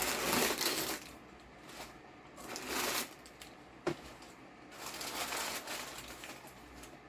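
Packaging rustling and crinkling as a shipping box is unpacked by hand, in several short bursts, with a sharp click about four seconds in.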